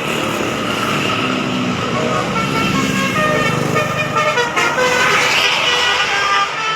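Bus 'telolet' horn, a Basuri multi-tone melodic horn, playing a tune of stepped notes over the noise of highway traffic, with a heavy bus engine passing close by partway through.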